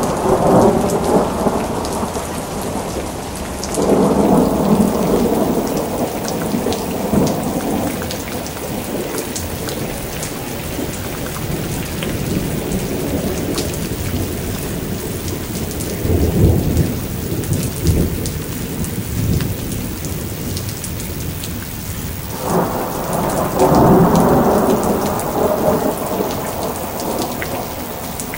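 Steady rain with rolls of thunder over it: one at the start, another about four seconds in lasting several seconds, a deeper rumble about halfway through, and a long roll near the end.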